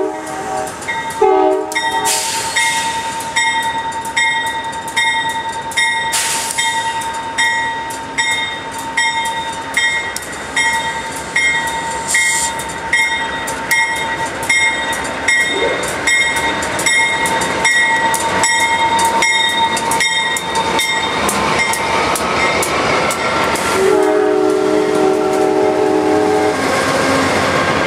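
Amtrak P42DC diesel locomotive's K5LA air horn, which sounds fouled, gives two short blasts at the start, then its bell rings steadily and evenly as it approaches. Near the end, as the train rolls past, the horn sounds one long chord of about three seconds.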